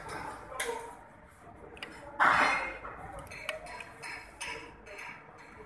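Hex key and 14 mm ring spanner clinking against the rocker arm and its adjusting screw and locknut while the valve clearance is set. One louder metallic clank with a brief ring comes about two seconds in.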